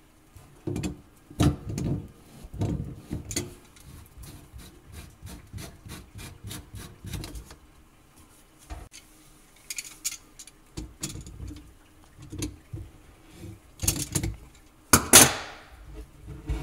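Slip nuts on a sink drain tailpiece and trap being unscrewed by hand, with rubbing, scraping and knocking of the black plastic drain pipes as they are worked loose and swung aside. A run of quick light clicks comes about four to seven seconds in, and a loud scrape near the end.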